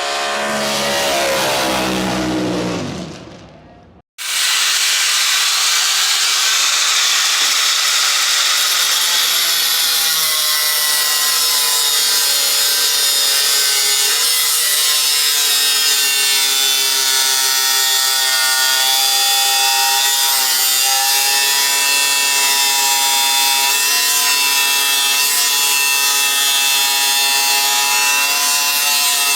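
Music fades out over the first few seconds. After a brief break, a hand-held power grinder runs steadily on sheet steel, its whine wavering slightly as the load changes.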